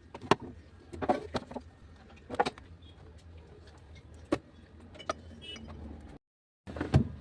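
Sharp knocks and clatter of containers and items being set down and moved about in a fridge, every second or two, over a low steady hum.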